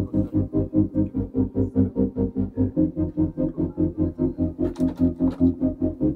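Background music: chords pulsing in an even, quick beat of about five a second, changing chord a little under halfway through.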